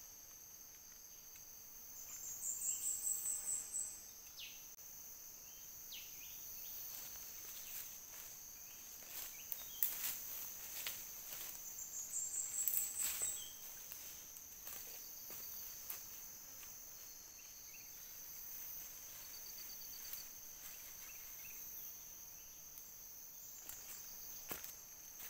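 Steady high-pitched insect drone with a wild bird calling twice, each a rapid series of very high notes lasting about a second and a half, about two seconds in and again around twelve seconds in. Scattered clicks and rustles in between.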